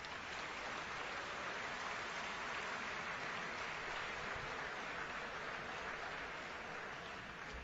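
Auditorium audience applauding, a steady clatter of many hands that begins to die away near the end.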